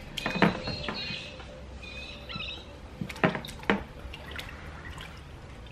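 Water sloshing and splashing in a plastic bucket as a hand swishes a paint-covered smartphone around to rinse it, with a few sharper splashes about half a second, three and three and a half seconds in.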